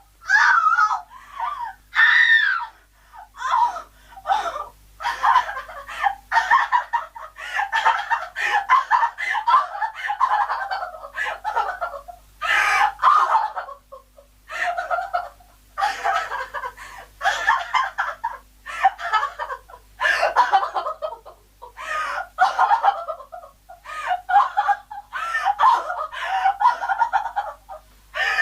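A woman crying hysterically: high, wailing sobs in repeated bursts of about a second with short breaths between them.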